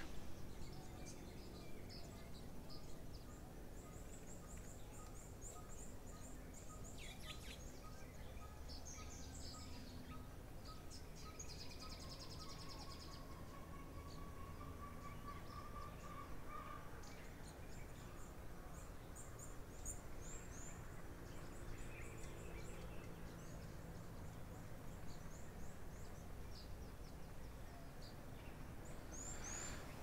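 Faint background birdsong: scattered short high chirps from several small birds. For the first dozen seconds a steady run of short whistled notes repeats about one and a half times a second, then gives way to a longer held note.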